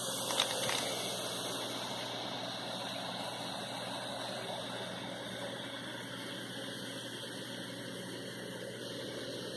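Baking soda and vinegar fizzing in a glass jar: a steady hiss of gas bubbling off as the reaction runs. A couple of light clicks sound near the start.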